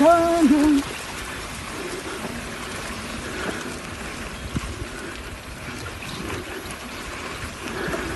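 A person's voice holds a long sung note that breaks off about a second in. After that comes a steady, even outdoor rushing noise with faint distant voices.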